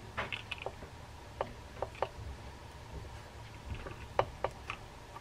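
Light, irregular clicks and taps of plastic and metal parts of a Penn Fierce III spinning reel knocking together as the spool is handled during reassembly, with one sharper click a little past four seconds in.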